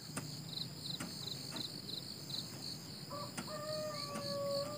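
Crickets chirping steadily in a rapid pulse about three times a second over a constant high insect drone, with a few light sharp taps. About three seconds in, a rooster starts a long drawn-out crow.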